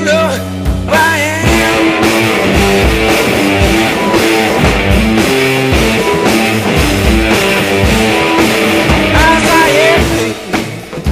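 Blues-rock studio recording by a guitar-and-drums duo: electric guitar over a drum kit keeping a steady beat, with sliding notes near the start and again near the end.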